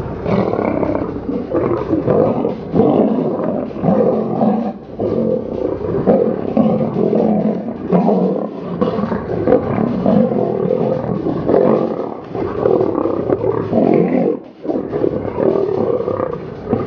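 Two male lions roaring and growling as they fight, in loud bursts one after another with a brief lull near the end.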